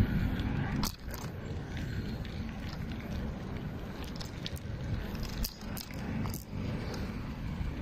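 Wind rumbling on the microphone and road noise from a bicycle riding along a concrete road, with a few brief clicks.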